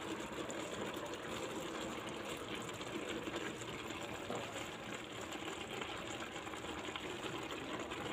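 Creamy sauce simmering in a frying pan on the stove, a steady bubbling hiss.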